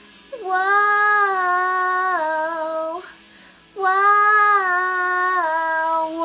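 A woman singing two long held notes without words, each dropping a step in pitch partway through.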